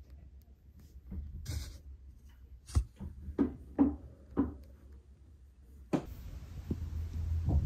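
Newborn kitten mewing three short times in quick succession, each cry falling in pitch, just after a single sharp tap. About six seconds in, a low steady hum takes over.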